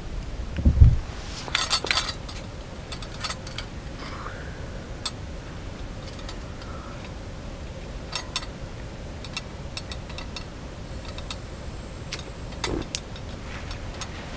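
Scattered light clicks and clinks of camp gear being handled, with a dull thump about a second in.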